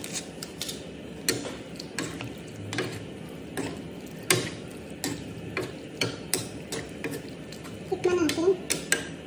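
Vegetables being stirred and tossed in a nonstick frying pan with a plastic spatula and a wooden spatula. The utensils knock and scrape against the pan in irregular clicks.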